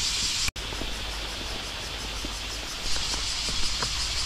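Chorus of cicadas droning steadily as a high, even hiss. It cuts out briefly about half a second in and swells again about three seconds in.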